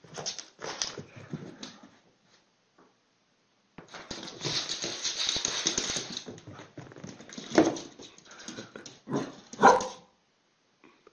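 A dog reacting to a lemon slice held out to it: short noisy huffs and a longer noisy stretch in the middle, then a few short, sharp calls in the last few seconds.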